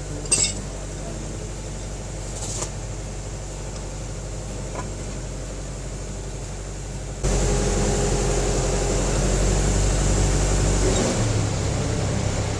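A motor running steadily, with two short metal clinks in the first few seconds. About seven seconds in it turns abruptly louder and rougher.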